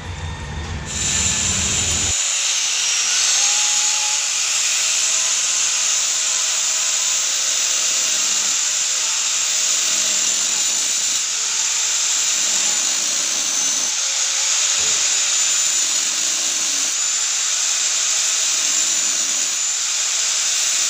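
Angle grinder starting about a second in, then cutting metal with a steady high whine over the hiss of the abrasive disc biting into steel.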